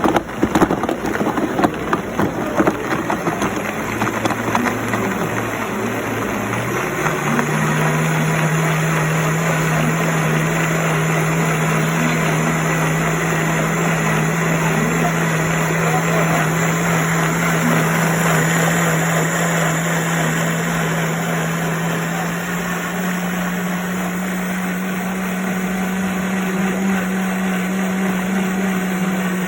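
Brutus professional blender running. Its contents clatter against the jar for the first few seconds, then the motor settles into a steady hum. The hum steps up in pitch about seven seconds in, holds, and shuts off at the end.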